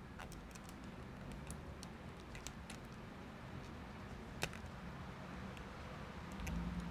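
Scattered small clicks and taps from handling laptop parts during reassembly, with one sharper click about four and a half seconds in, over a low steady background.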